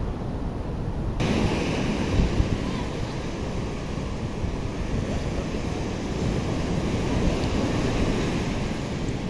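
Sea surf washing steadily onto a sandy beach, with wind rumbling on the microphone.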